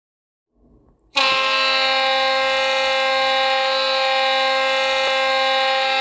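Goal horn sounding: a loud, steady, many-toned horn blast that starts suddenly about a second in and holds without a break.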